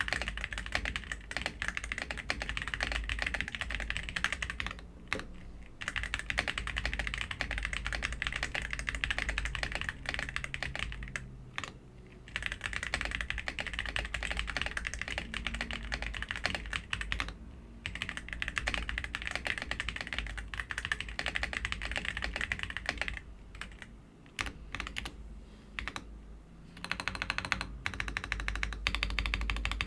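Vortex Mono 87 V2 tenkeyless mechanical keyboard being typed on in a fast, continuous clatter of keystrokes, broken by a few brief pauses. The keyboard is stock and factory-lubed, in an all-plastic case.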